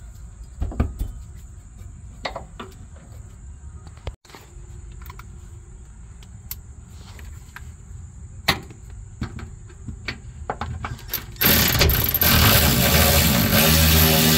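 Scattered metallic clicks and knocks of a hand ratchet working the bolt of a rear camber arm. About eleven seconds in, a much louder continuous noise takes over.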